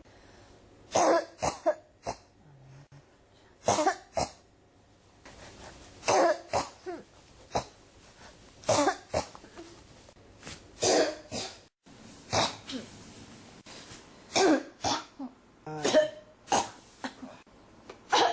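A person coughing over and over in short fits of two to four coughs, a fresh fit every second or two.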